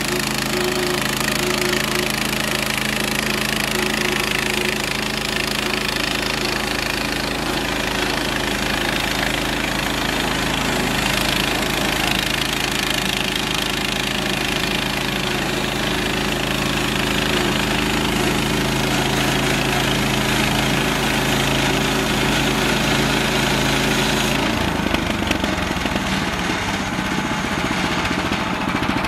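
Gasoline engine of a Central Machinery band sawmill running at a steady pitch while the mill saws pine logs into boards. Near the end the steady engine note breaks up into a rougher, uneven sound.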